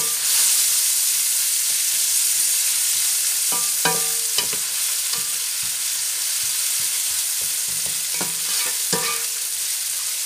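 Sliced onions and garlic sizzling steadily as they fry in a nonstick pan, with scattered scrapes and taps of a plastic spatula stirring them against the pan.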